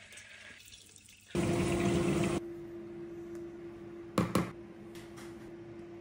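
A loud, even hiss for about a second, then a faint steady hum, with two quick clinks of a metal spoon against a plate a little past four seconds in, as risotto is spooned out for plating.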